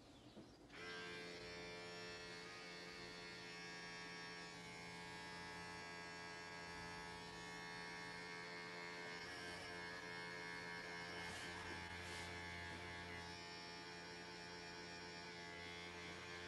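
Electric hair clippers switched on about a second in, buzzing steadily as they trim hair.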